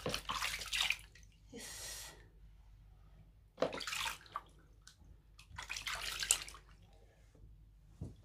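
Water splashing and sloshing in a plastic foot basin as hands scoop it over and rub the feet, in four short bursts about two seconds apart.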